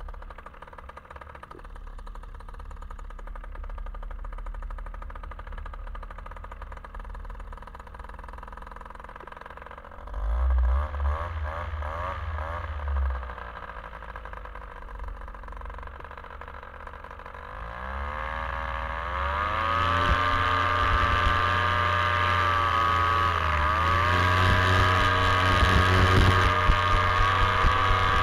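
Paramotor engine running at low throttle, briefly revved about ten seconds in, then opened up with a rising pitch to a loud steady full-power run for the takeoff, dipping briefly and picking up again a few seconds later.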